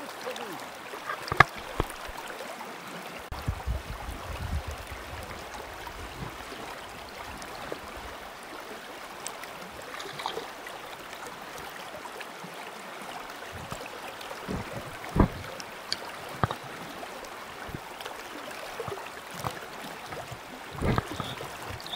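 Limestone spring creek running steadily over a riffle, with occasional small splashes and knocks as a netted trout is handled and released in the water.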